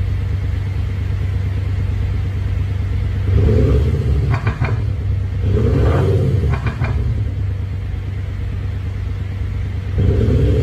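Mercedes E220d's JSR XHAUST active sound generator playing a synthesized AMG 63-style V8 exhaust note at 70% volume: a steady rumbling idle, two short revs that rise and fall a few seconds in, each ending in a few sharp pops, and another rev starting near the end.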